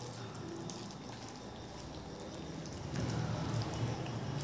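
Thick chicken curry gravy simmering in a non-stick kadai while a spatula stirs it: faint bubbling and stirring, a little louder about three seconds in.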